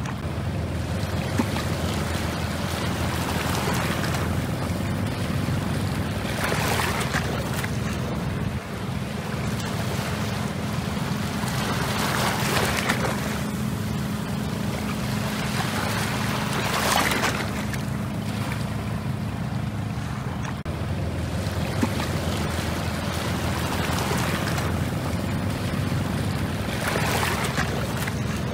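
Steady low drone of an approaching fishing trawler's engine, with waves surging and washing over the shore rocks every few seconds.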